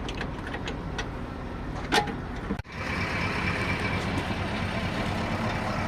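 Truck diesel engine running steadily, with a few sharp ticks. The sound breaks off abruptly about two and a half seconds in and picks up again as a steadier engine run with a thin high whine.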